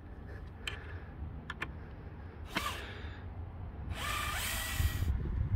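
Bosch cordless drill running into a timber plank for about a second, its motor whine rising in pitch as it spins up. A few sharp knocks and a brief scrape come before it.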